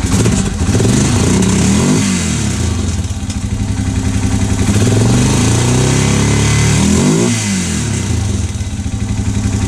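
Honda 650 engine running and revved twice: a short rev up and back in the first two seconds, then a longer rev that holds for a few seconds and drops back to idle. The engine has a knock that comes and goes, which the mechanic suspects is in the crank or a slack piston.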